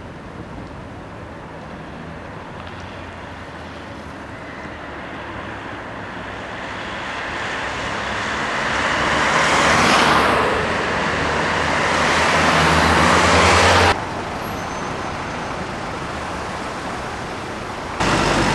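Street traffic with a trolleybus pulling up close by: the rushing noise builds to a loud peak about halfway through and stays loud with a low hum for a few seconds, then cuts off abruptly, leaving quieter traffic hum.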